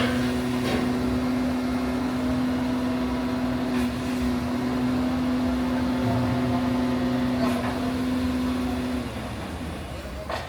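A machine running with a steady hum that stops about nine seconds in, with a few sharp metallic knocks during it.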